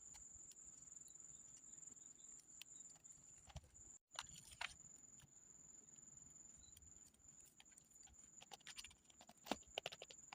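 Faint, scattered light taps and clicks, coming more often and a little louder in the second half, over a thin steady high-pitched whine. The sound cuts out briefly about four seconds in.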